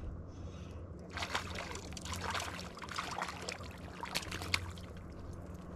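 Hooked trout thrashing and splashing in shallow water at the bank as it is reeled in: a run of irregular splashes starting about a second in and dying away near the end.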